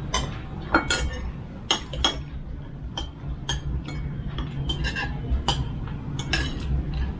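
Spoons and cutlery clinking against bowls and dishes at a meal: about a dozen sharp, irregular clinks over a steady low hum.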